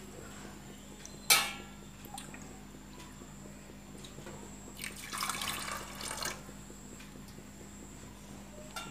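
Steel utensils clink sharply once, with a short ring, about a second in. Then water is poured from a small steel bowl into a pressure cooker of washed toor dal for about a second and a half, around the middle.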